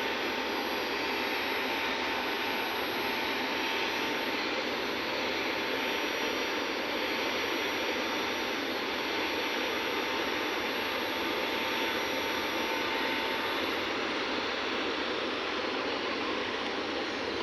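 Steady hiss from TIG welding on 4-inch carbon steel pipe, with a faint steady whine that stops about 13 seconds in.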